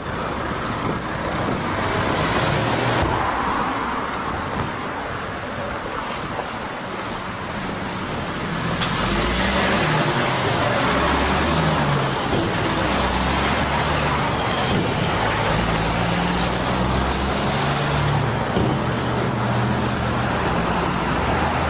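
Road traffic: cars passing and running at a street intersection, a steady rush of tyres and engines with a low engine hum. It grows louder about nine seconds in.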